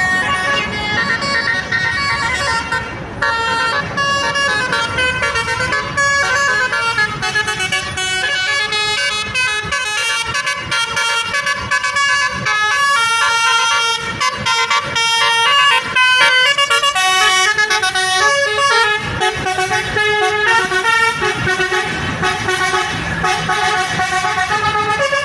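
Bus telolet horn playing melodic tunes: a long run of multi-tone horn notes, quickly switching between pitches, with some notes held.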